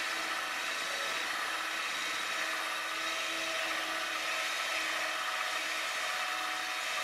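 Power drill spinning a horsehair rotary brush along a cross-country ski's base, running steadily at one pitch, sweeping the leftover wax out of the base structure.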